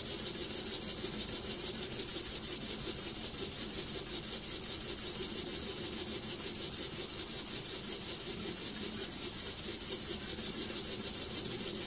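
Small home-built wobbler (oscillating-cylinder) engine running steadily on compressed air at about 5 psi: a rapid, even chuffing of exhaust air with a constant hiss. It runs nice and smooth.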